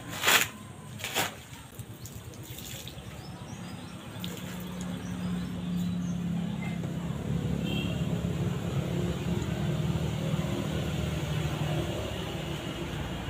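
Two sharp knocks in the first second or so, a machete striking a coconut's shell, with a fainter knock a little later. From about four seconds in, a low steady engine hum, a motor vehicle running nearby, builds slightly and carries on.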